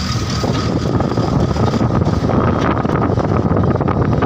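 A car on the move: steady engine and road noise, with wind buffeting the microphone.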